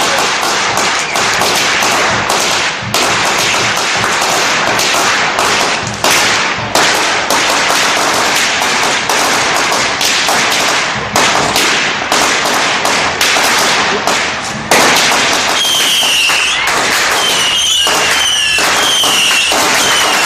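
A long string of Tết firecrackers going off in a fast, continuous crackle of sharp bangs. About fifteen seconds in the crackle thins to scattered cracks, with a few short high whistling sounds among them.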